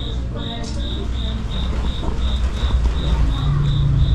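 An insect, cricket-like, chirping steadily in high, even pulses, about three a second. A low rumble grows louder underneath toward the end.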